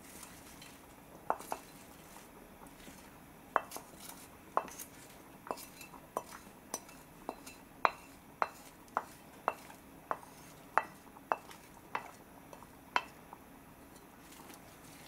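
A porcelain plate and wooden spatula clinking and tapping as chopped greens are pushed off the plate into a clay pot, about twenty short, sharp clicks at an uneven pace, roughly one or two a second.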